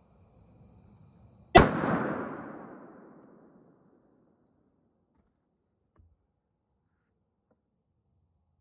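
A single 7mm hunting rifle shot about a second and a half in, its report echoing and fading away over about two seconds. Crickets chirp faintly before the shot.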